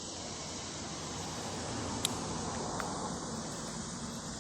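Steady outdoor rushing noise, swelling slightly in the middle, with a single sharp click about two seconds in.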